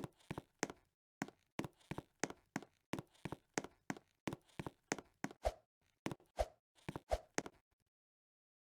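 Footsteps, a steady series of sharp knocks about two to three a second, with three heavier thuds near the end before they stop abruptly.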